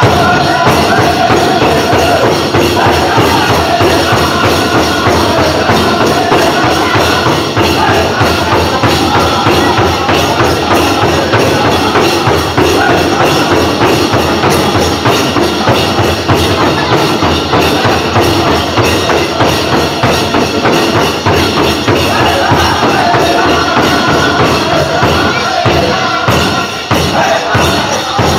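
Powwow drum group singing over a steady, driving drumbeat, with the dancers' bells jingling along. Near the end the individual drumbeats stand out more sharply.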